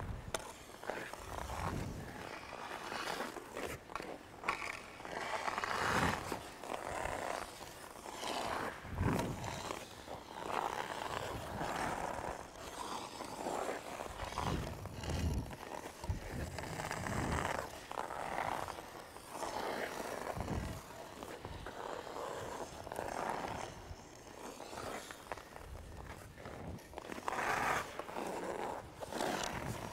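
Hockey skate blades scraping and carving on rink ice in a run of strides and edge turns, each push a short surge of scraping noise, coming about every one to two seconds.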